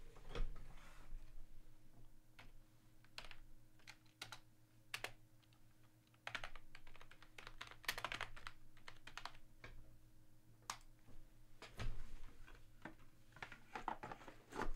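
Faint typing on a computer keyboard: irregular key clicks, with a low steady hum underneath.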